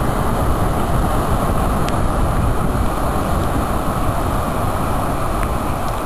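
Wind buffeting the camera microphone over surf breaking on the beach: a loud, steady rush heaviest in the low end.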